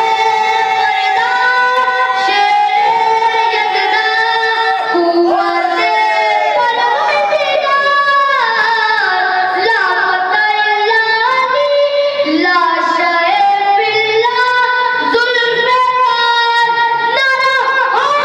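A man's voice singing Urdu verses in a melodic recitation (tarannum), amplified through microphones. He holds long notes that bend and glide up and down, with few clear words.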